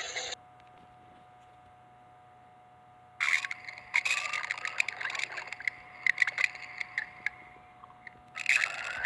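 Cartoon stomach-growling sound effect: a run of gurgles with rising and falling whines and many small clicks, lasting about four seconds from about three seconds in, then a short gurgle near the end, over a faint steady hum.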